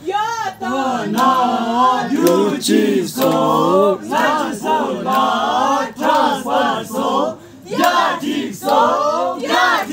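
A group of voices singing a song together in unison, unaccompanied, in phrases with short breaks about four and seven and a half seconds in.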